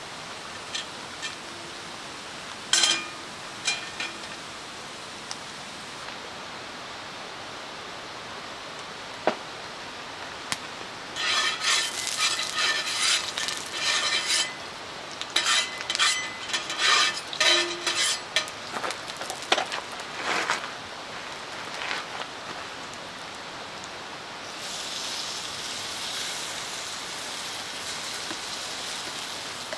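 Wood fire crackling with a few sharp pops, then a spatula scraping and clinking in a frying pan as oil is spread. Near the end, okonomiyaki batter poured into the hot pan sets off a steady sizzle.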